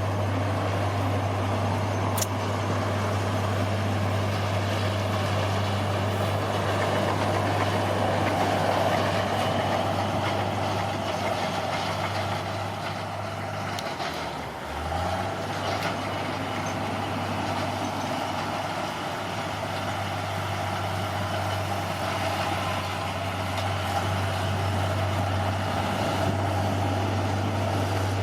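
Bulldozer's diesel engine running steadily under load. About halfway through the engine speed drops briefly and the level dips, then it comes back up.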